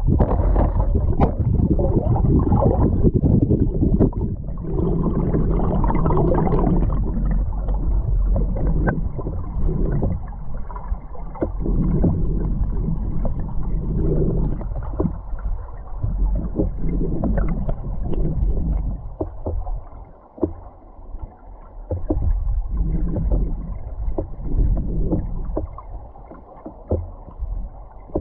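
River current rushing and rumbling, heard muffled from a camera submerged in the stream. The sound is a low, uneven roar, with scattered faint clicks, and dips for a few seconds past the middle.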